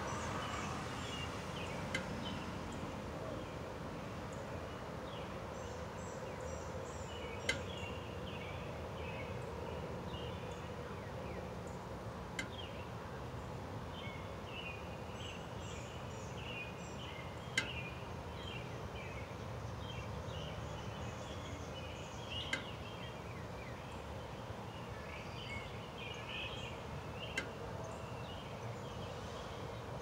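Outdoor ambience: a steady background hiss and hum with birds chirping faintly through it, broken by a sharp click about every five seconds.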